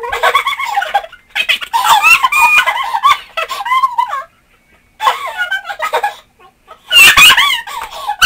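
Young women's voices sped up into high, squeaky chipmunk voices, chattering and giggling in short bursts with brief gaps, the loudest burst near the end.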